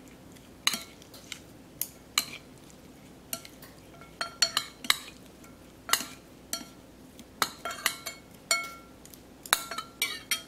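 Metal spoon clinking and scraping against a ceramic bowl as fish are turned over in their marinade: irregular light clinks, some ringing briefly.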